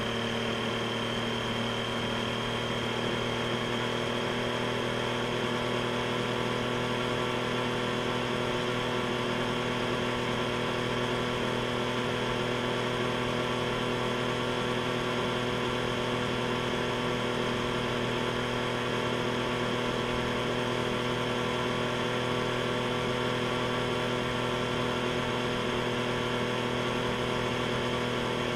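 Triumph Street Triple RS's 765 cc inline three-cylinder engine running through its stock exhaust at steady, unchanging revs while the motorcycle cruises, heard from the rider's seat over a steady hiss of wind.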